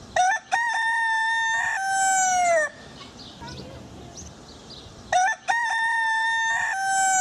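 An ayam kampung (Indonesian village) rooster crowing twice, the second crow beginning about five seconds in. Each crow is a short opening note, a long held note and a final note that falls in pitch.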